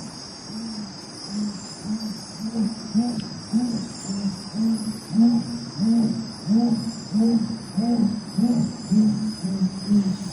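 Jaguar calling with its roar, a long run of low grunts at about two a second that build louder from about a second in. A steady high chorus of night insects runs beneath.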